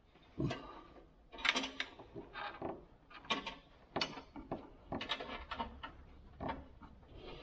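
Irregular sharp metal clicks and clinks of a wrench on an A/C refrigerant line fitting as it is tightened onto a Vintage Air condenser.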